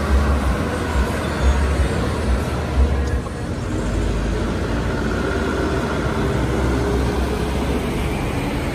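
Diesel engine of a loaded light truck running close by as it drives past, a heavy low rumble for about the first three seconds that cuts off abruptly. After that comes a steadier, lower engine noise from trucks approaching.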